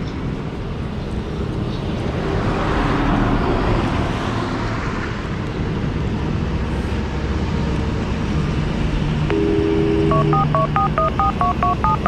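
Steady low rumble of road traffic and engines. Near the end a horn sounds briefly, then a fast run of short electronic beeps steps up and down in pitch like a little tune.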